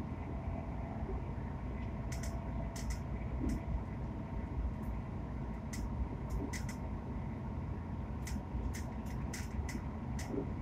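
Interior running noise of a GWR Hitachi Class 802 train coach at speed: a steady low rumble with a steady hum over it. Frequent short, sharp high clicks come from rattles in the coach.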